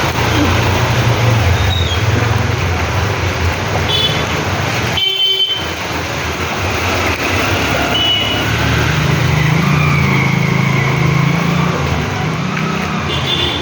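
Road traffic with vehicle engines running close by and a few short high beeps. The sound drops out briefly about five seconds in.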